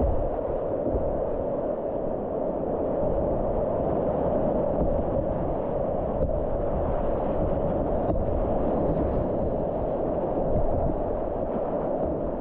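Steady, muffled rushing of whitewater river water, with two faint knocks about halfway through.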